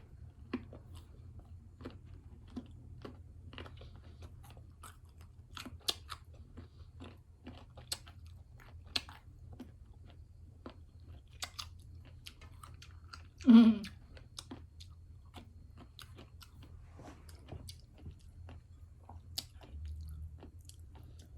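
Green mango being bitten and chewed close to the microphone, with repeated crisp crunches, and one short hum about halfway through.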